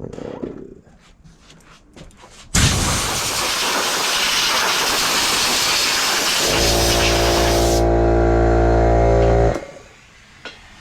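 Dynamite .28 big-block nitro engine in an RC car running. It starts suddenly with a loud rushing blast at high revs, then settles for about three seconds into a steady, even-pitched running note. The engine cuts off abruptly near the end.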